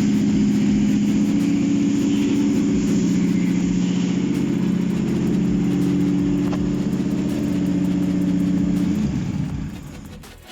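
Toyota 4GR-FSE V6 engine running steadily on a test stand, then switched off about nine seconds in, its sound dying away.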